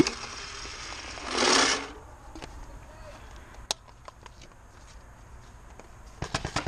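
Paintballs poured from a pod into a paintball marker's hopper: a short rush of rattling about a second in. Scattered clicks and taps follow, with a quick cluster near the end.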